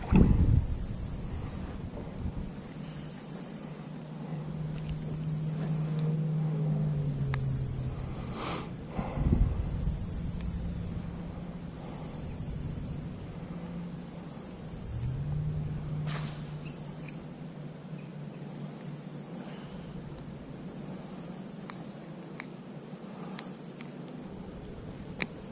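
Insects trilling steadily at a high pitch, with a few short knocks and a low hum that comes and goes between about four and sixteen seconds in.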